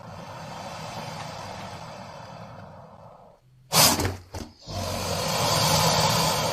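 Synthetic monster vocal effects built from layered creature sounds. A long breathy hiss runs for about three seconds, then a sudden loud short burst breaks up in a couple of quick stutters, and a long raspy hiss follows that swells and fades near the end.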